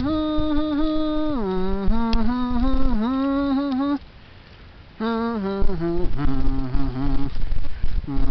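A person humming a slow tune: held notes that step up and down in pitch, with a brief pause about halfway through. Low wind rumble on the microphone underneath.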